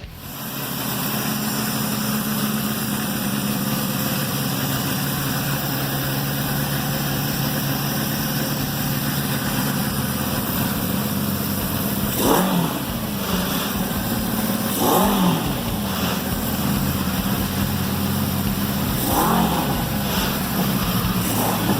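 An engine idling steadily, with three brief revs of the throttle: about 12, 15 and 19 seconds in.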